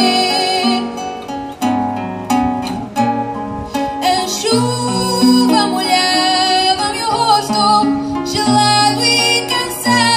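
Live music: a woman singing a fado-style song, accompanied by an acoustic guitar playing plucked bass notes and chords, with a clarinet joining the melody.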